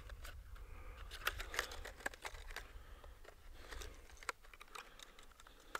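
Clear plastic fishing-lure packaging crinkling and crackling as it is handled: a scatter of small, faint crackles.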